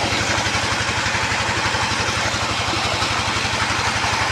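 An engine-driven water pump runs steadily with a fast, even beat, over the rush of water gushing strongly from its outlet pipe.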